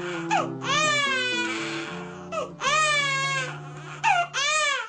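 Music with held low notes, under a high wailing voice that rises and falls in repeated cries like a baby crying.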